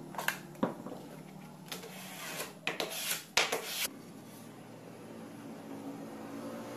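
Short scrapes and rubs of a thin HPL laminate sheet being handled and laid down onto a glued board, bunched in the first half and fading to a quiet stretch.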